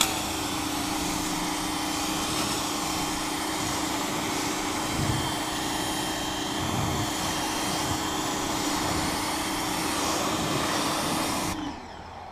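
Pressure washer running: its motor and pump hum steadily while the jet of water hisses against a car's painted hood. Both cut off suddenly near the end.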